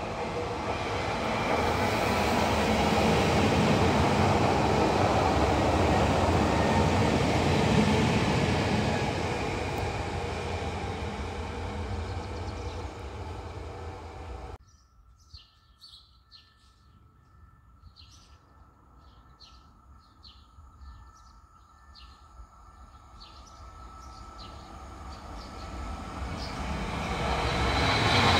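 A 48WE electric multiple unit passes with a steady rush of wheels on rail and running gear, then fades away. After an abrupt cut, birds chirp briefly over quiet. A 31WE electric multiple unit then approaches, its rush growing louder toward the end.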